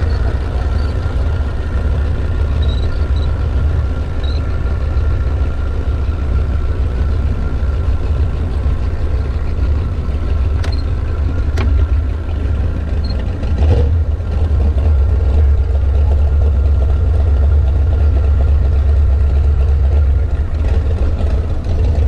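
Boat's outboard motor idling steadily as the boat moves slowly, a continuous low rumble. A few sharp clicks come a little past halfway.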